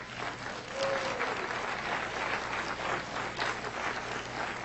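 A large seated audience applauding, a steady dense patter of many hands clapping.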